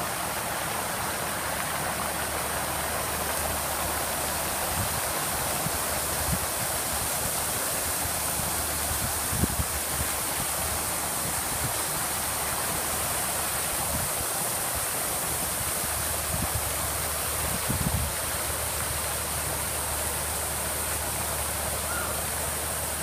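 Many jets of a large ornamental fountain splashing down into its basin: a steady rush of falling water, with a few brief low bumps.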